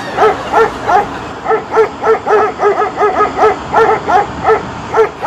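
Dog barking over and over in short, high barks, about three or four a second, without a pause.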